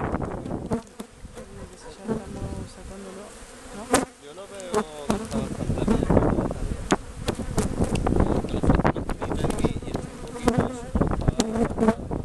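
Honeybees buzzing around an opened hive, with individual bees flying close past and their pitch rising and falling. Several sharp knocks are scattered through, the loudest about four seconds in.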